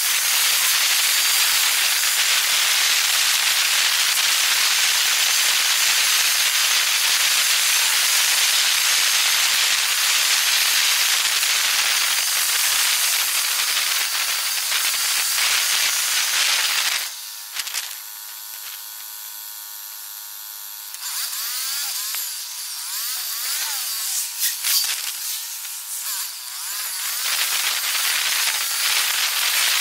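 Wind and road noise from a moving camera, played back at ten times speed so it comes out as a steady high-pitched hiss. About 17 seconds in it drops to a quieter stretch with a pitched whine for a few seconds, then the hiss returns.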